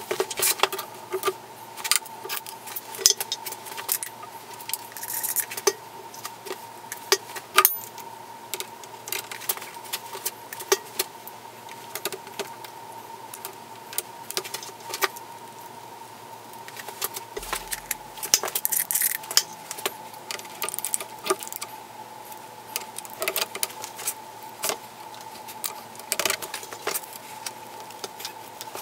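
Steel parts clinking and knocking as the bolts, nuts and linkage arms of a tire power hammer are handled and fitted by hand: irregular light metallic clicks, some sharper than others, over a faint steady hum.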